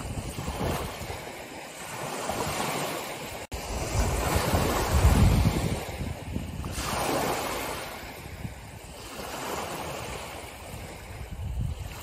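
Small sea waves breaking and washing onto a stony shore in repeated swells, the biggest about five seconds in, with a brief dropout in the audio about three and a half seconds in.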